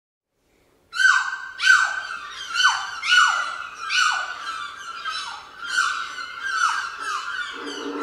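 Soundtrack of bird-like calls: about ten short cries in quick succession, each sliding down in pitch, starting about a second in. Near the end, a low steady drone of held tones joins them.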